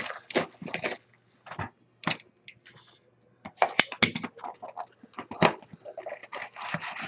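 Trading-card pack wrappers crinkling and tearing as hockey card packs are handled and peeled open, in irregular crackles with a quiet lull about a second in.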